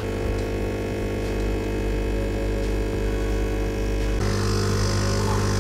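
Nespresso capsule coffee machine brewing, its pump giving a loud, steady buzzing hum as espresso pours into a mug. About four seconds in the sound shifts, with the hum growing stronger and a hiss rising.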